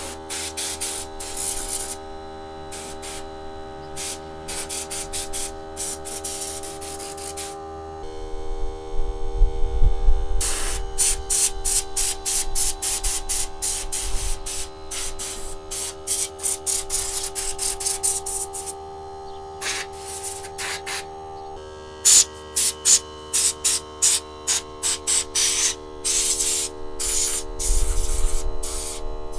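Compressed air from a blow gun fed by a small 1-gallon air compressor, fired in many short, quick blasts of hiss through a tower fan's grille to blow out dust. A steady hum runs underneath.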